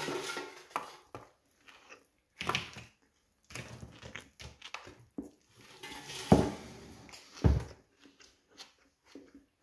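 A person biting into and eating a folded lamb flatbread wrap: scattered crackles and rustles of the bread and salad close to the microphone. Two dull thumps come about six seconds in and again a second later, around the time the wrap is set back down on the plate.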